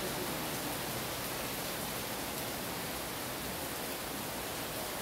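Steady rain falling on leaves and trees, an even hiss.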